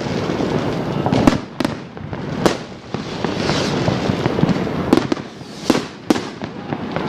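Fireworks going off: a dense, continuous crackle and rumble of many bursts, with about seven sharp bangs standing out, irregularly spaced, a few of them close together.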